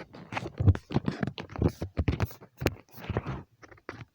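Fingers tapping and rubbing on a phone held close to its microphone: a quick, irregular run of taps, knocks and scrapes.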